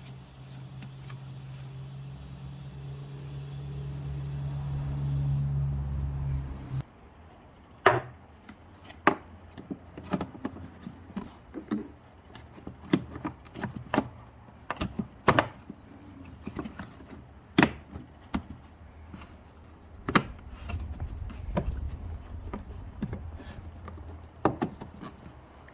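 Plastic engine-bay cover on a BMW E90 being handled and clipped into place: a series of irregular sharp clicks and knocks. Before that, a steady low hum grows louder and cuts off suddenly about seven seconds in.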